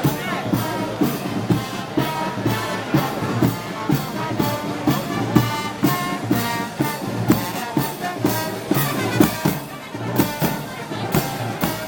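Brass band playing festival march music: sustained brass chords over a steady drum beat.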